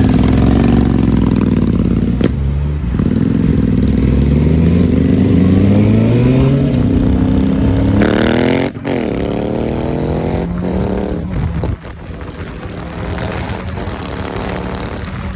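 Motorcycle engine accelerating, its pitch climbing steadily through the revs. The pitch drops sharply at a gear change about nine seconds in, then climbs again. Near twelve seconds it eases off to a quieter, steadier run.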